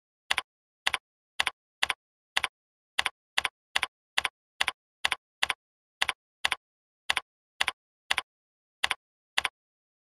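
Computer keyboard typing: a steady run of single keystrokes, about two a second, each a quick double click of key press and release, with silence between them.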